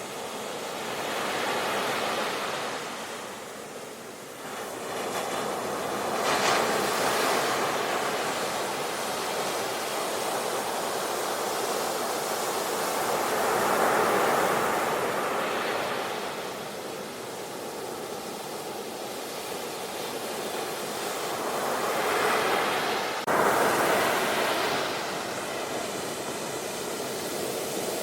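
Sea waves washing onto a shore: a steady rush of surf that swells and ebbs every few seconds, with an abrupt jump in level about three quarters of the way through.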